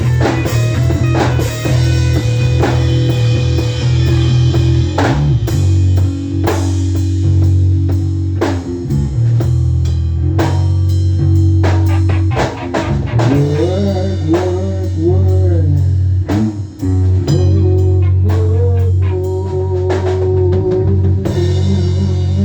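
Grunge rock band playing an instrumental passage: electric guitar, bass and drum kit. From about halfway through, the guitar plays a line of bent, sliding notes over held bass notes and steady drum hits.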